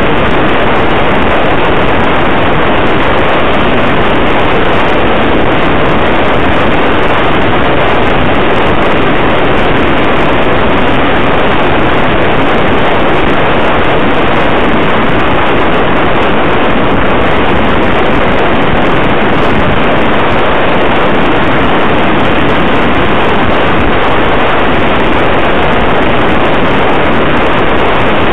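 Loud, steady rush of wind buffeting the microphone of a camera on a vehicle moving at road speed, mixed with road noise; no engine tone stands out from the noise.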